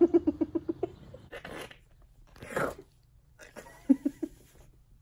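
A woman laughing: a quick run of pitched laughs in the first second, then breathy laughter, with a few more short laughs near the end.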